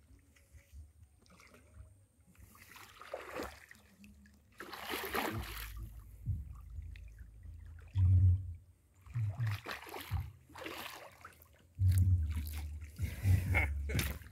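A hooked tilapia splashing and thrashing at the water's surface as it is played in and netted, in several separate bursts of splashing. Dull low thumps come in over the second half.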